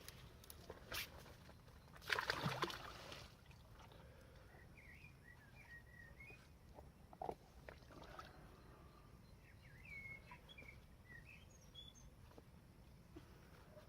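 A brief rush of noise about two seconds in, then small birds chirping and warbling in short phrases, with a few faint clicks.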